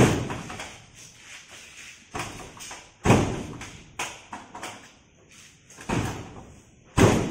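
Rear tailgate of a Daihatsu Gran Max van being pushed and banged shut, a series of about six heavy thumps, loudest at the start, about three seconds in and near the end.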